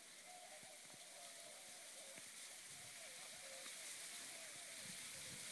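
Near silence: faint, steady outdoor background hiss, with a faint wavering tone running through it.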